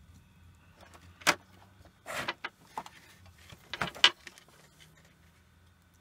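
Hands handling a small circuit board and its micro USB connector: a sharp click about a second in, a short rustle a second later, and a couple of clicks about four seconds in, over a faint low hum.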